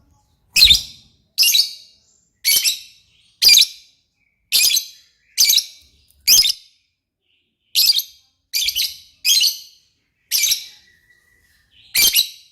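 A lovebird giving about a dozen short, high-pitched calls in a steady series, roughly one a second, with two brief pauses along the way.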